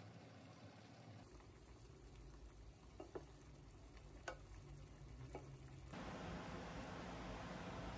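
Faint stirring of a thick sauce in a pot with a wooden spoon, with a few light knocks of the spoon against the pot. About six seconds in, a steady faint hiss takes over.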